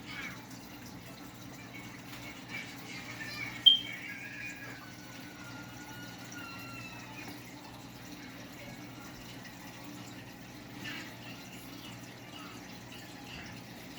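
Aquarium water trickling and splashing over a steady low hum, with one sharp click a little under four seconds in.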